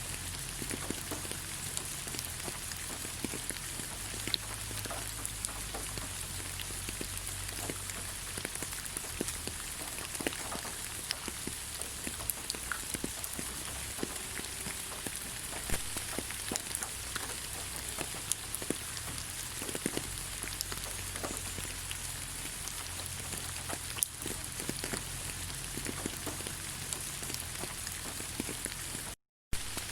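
Steady rain falling on leaves: a dense patter of individual drops over an even hiss. The sound drops out completely for a split second near the end.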